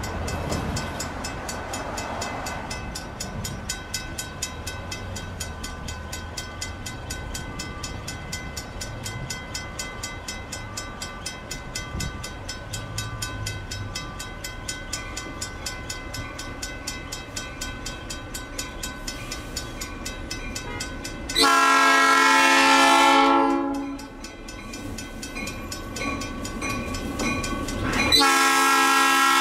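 Grade crossing bell ringing in quick, even strikes over the low rumble of an approaching diesel locomotive. About two-thirds of the way through, the locomotive's multi-note air horn sounds one long blast, and a second long blast begins near the end.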